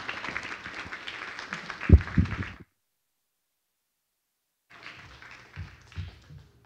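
Audience applauding, with a couple of heavy low thumps about two seconds in. The sound then cuts out abruptly to dead silence for about two seconds, and fainter applause with low thuds comes back near the end.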